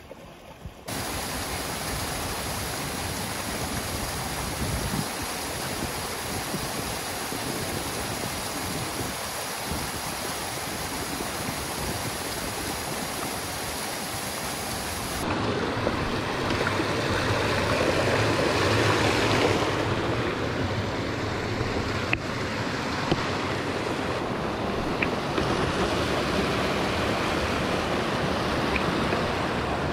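Mountain stream rushing over rocks in small waterfalls and cascades, a steady wash of water. About halfway through it changes and grows louder, as from a bigger cascade.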